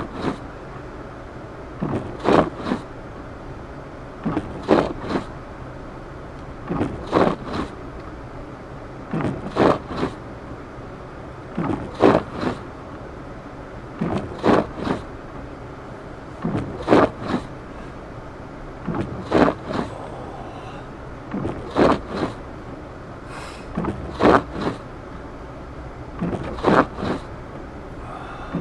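Windshield wipers sweeping across the glass in a steady rhythm, a stroke about every two and a half seconds, over the steady running noise of a car driving through snow.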